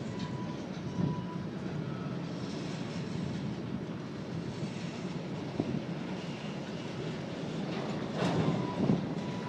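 Union Pacific local freight train moving during switching: a steady rumble of rolling cars, with a faint thin squeal in about the first second and again near the end, and a louder swell near the end.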